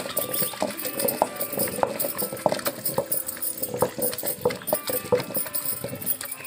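Stone roller rolling and knocking on a granite grinding stone (ammi kal) as hibiscus petals are ground wet into batter, a quick, uneven run of stone-on-stone knocks about three a second.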